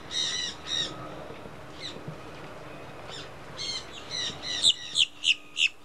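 Caged green parrots squawking: a string of harsh, shrill calls, ending in four loud squawks in quick succession near the end.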